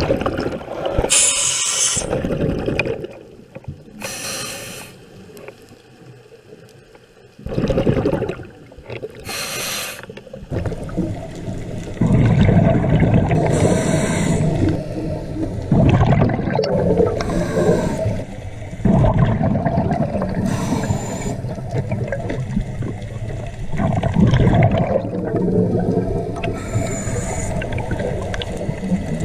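Scuba diver breathing through a regulator underwater. Short hissing inhalations come every few seconds, and the exhaled bubbles gurgle and rumble in longer bursts.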